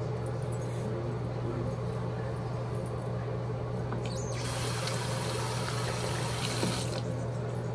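A steady hiss lasting nearly three seconds, starting a little over four seconds in and cutting off sharply, over a low steady hum.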